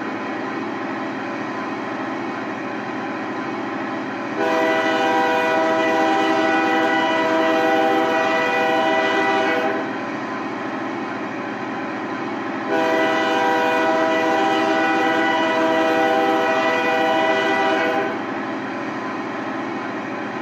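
Model-locomotive sound decoder playing an EMD 16-645E3 diesel engine sound through the model's small loudspeakers. The engine runs steadily, and two long horn blasts of about five seconds each sound, the first about four seconds in and the second about thirteen seconds in.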